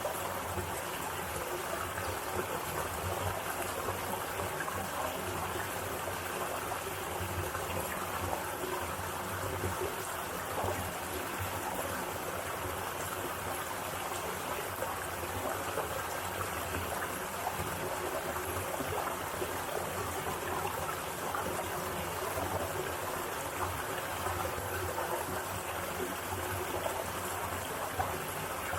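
Mountain valley stream flowing steadily, a continuous rush of running water with no breaks.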